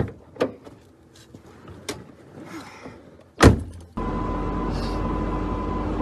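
A few light clicks, then a car door slamming shut about three and a half seconds in, followed by a steady car-interior hum with a faint high tone.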